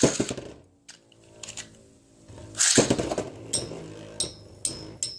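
Metal Fight Beyblade tops launched into a stadium and spinning. There are two loud rushes about two and a half seconds apart, a steady hum from the spinning tops, and then several sharp metal-on-metal clicks as they clash.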